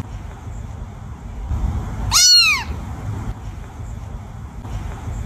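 A kitten meowing once, about two seconds in: a short, high mew that rises and then falls in pitch, over a low steady rumble.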